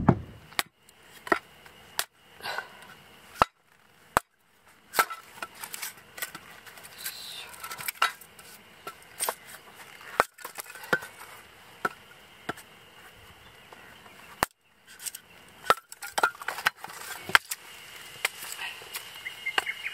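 Small hatchet splitting firewood into kindling: a string of sharp wooden knocks and cracks at an uneven pace, one or two a second, as the blade strikes and cleaves the sticks.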